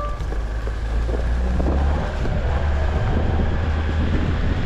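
Off-road 4x4 driving on a trail: its engine and drivetrain make a steady low rumble over tyre and road noise, growing a little louder about a second in.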